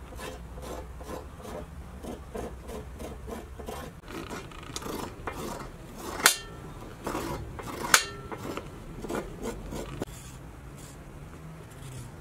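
A kitchen knife scraping the skin off raw carrots in quick rasping strokes, about three or four a second. Twice midway, about two seconds apart, come sharp metallic clinks with a short ring, as the knife strikes the metal tray.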